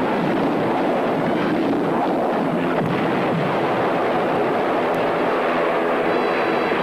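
Steady, dense vehicle noise as a car drives fast through a thick cloud of dust.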